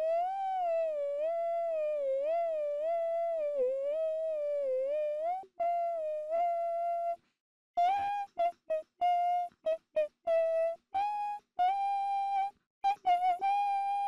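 High-pitched voice humming a melody. A long note wavers up and down for about five seconds, then a few held notes, then a run of short separate notes.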